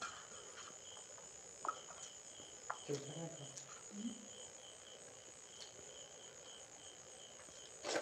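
Crickets chirping steadily: a continuous high trill with a second, lower chirp pulsing about three times a second. A few faint clicks of fingers against a steel plate break in now and then.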